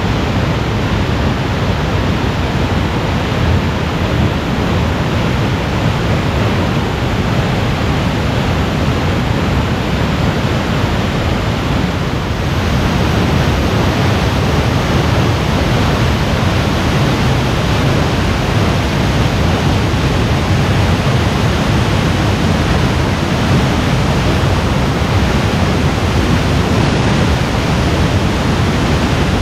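Waterfall pouring into a shallow plunge pool, a loud steady rush of falling water that grows a little louder about twelve seconds in.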